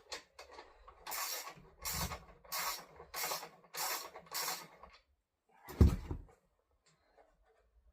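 Six evenly spaced rasping strokes, about one every two-thirds of a second, then a single loud thump near the end.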